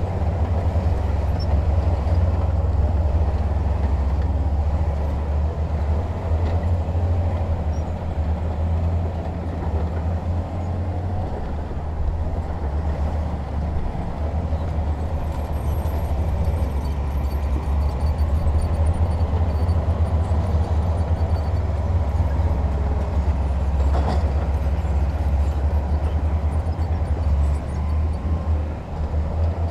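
Heavy diesel earthmoving machinery running with a steady deep rumble, with one short knock late on.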